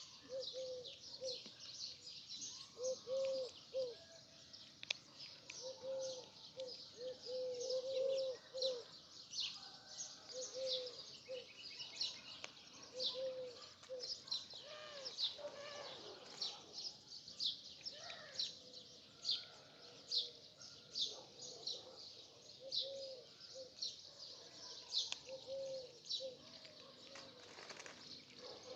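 Many small birds chirping continuously in quick, high notes, with a lower short note repeated in quick runs, most often in the first ten seconds and now and then after.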